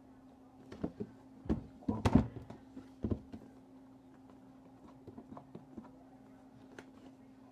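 A graphics card's cardboard retail box being handled and opened: a cluster of knocks and thumps in the first few seconds, loudest about two seconds in, then a few light clicks and taps.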